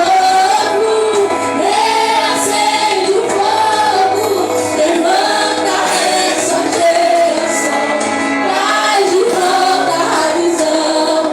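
Worship music: female voices singing a melodic line together over steady instrumental accompaniment.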